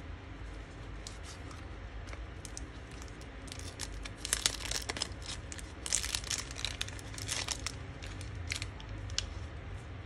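Clear plastic bag crinkling and rustling as a vintage Zippo lighter is worked out of it, in an uneven run of crackles that is busiest in the middle.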